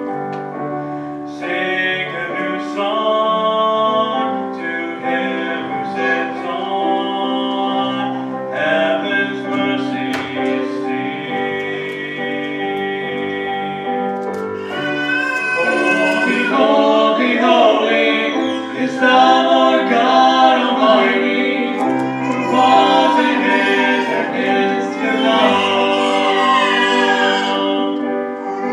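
A worship song sung by a woman into a microphone, accompanied by electric keyboard, with long held notes.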